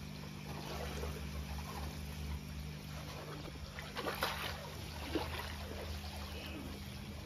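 A hooked bawal fish splashing and thrashing at the pond's surface as it is reeled in and lifted out of the water, with splashes about four seconds in and again about five seconds in. A steady low hum runs underneath.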